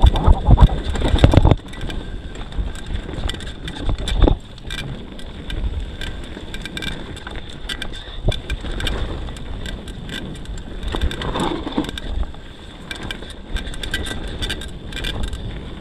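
YT Tues downhill mountain bike rolling down a dirt singletrack: wind on the microphone and tyre rumble loud for the first second and a half, then quieter as the bike slows, with scattered clicks and knocks from the bike over the bumps.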